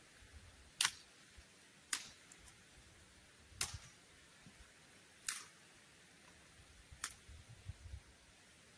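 Five sharp knocks or snaps spaced about one and a half to two seconds apart, with a few soft low thumps near the end.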